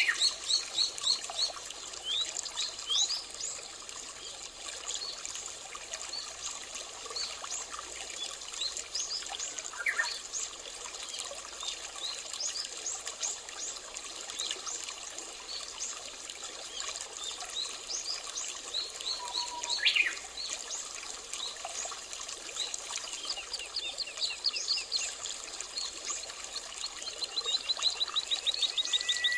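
Small birds chirping in quick runs of short calls and trills over a steady trickle of running water. The chirping is busiest at the start and again near the end.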